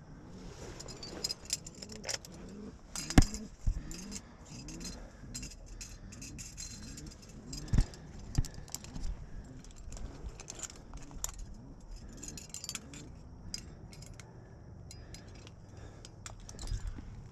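Metal climbing gear (carabiners and protection hanging from the harness) jangling and clinking as the climber moves up the rock, with two louder knocks about three and eight seconds in.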